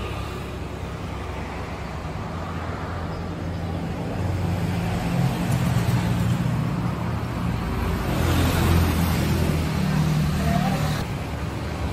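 Street traffic: vehicle engines running with a steady low rumble, and a vehicle passing close, loudest about eight seconds in.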